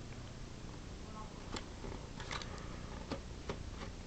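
A few light, sharp clicks and scratches as a small hand tool picks at the edge of a sealed cardboard retail box, trying to break the seal.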